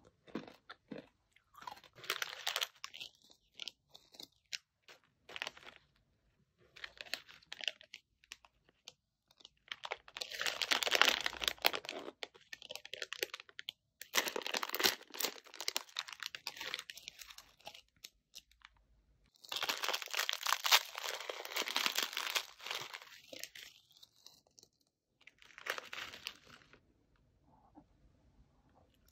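GEMEZ Enaak crunchy dry noodle snack, crunching and crinkling in several bursts a few seconds long, with short quiet pauses between.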